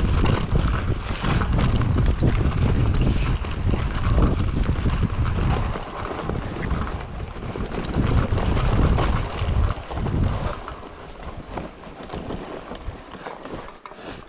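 Wind buffeting the microphone and a mountain bike rattling over rough ground on a fast downhill run. The noise eases off about ten seconds in.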